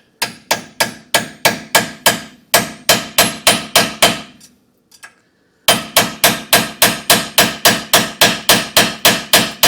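Hammer striking a steel punch, metal on metal, to drive out a rear shock mounting bolt stuck inside the shock's sleeve. A steady run of ringing blows at about three a second, a break of about a second and a half just before the middle, then the blows resume a little faster.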